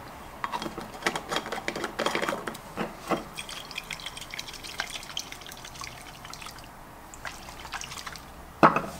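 Rose water and glycerin sloshing in a small glass pump jar as it is shaken to mix them, with small clicks and taps of the plastic pump head against the jar.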